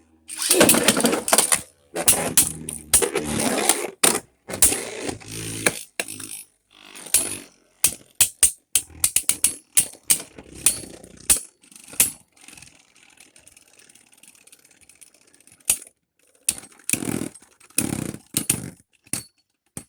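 Two Beyblade Burst spinning tops launched into a plastic stadium, then scraping and clashing, with rapid sharp collision clicks. Midway the spinning goes quieter, and a few hard hits come near the end.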